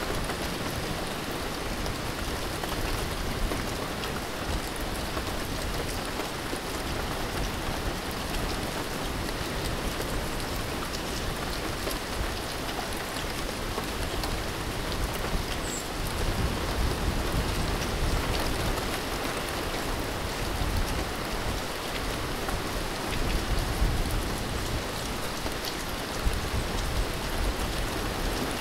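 Steady rain falling, an even dense hiss, with low rumbles swelling up now and then.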